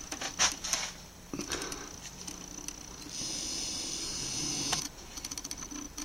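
Handling noise: scattered light clicks and rustles, with a steady hiss lasting about two seconds in the middle.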